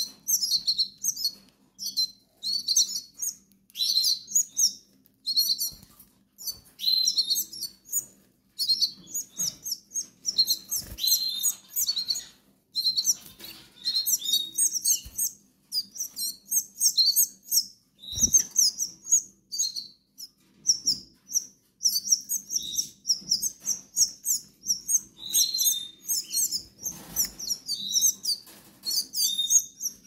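Hungry canary nestling begging for food: runs of rapid, high, insistent chirps as the adult feeds it, with wing flutters and a couple of soft knocks.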